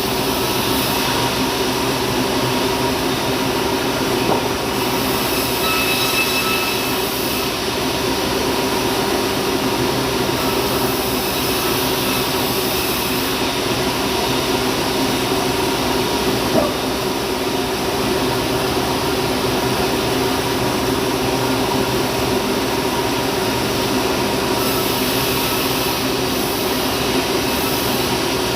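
Sawmill machinery running steadily.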